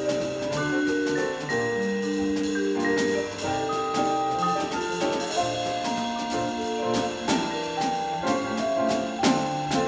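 Jazz trio of vibraphone, piano and drum kit playing together: ringing mallet notes and piano over a steady beat of cymbal and drum strokes.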